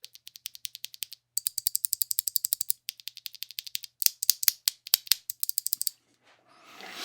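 Mechanical keyboard with clicky Kailh Box Pink switches being typed on fast: rapid runs of sharp, bright clicks with short breaks about a second and about three seconds in, stopping about a second before the end.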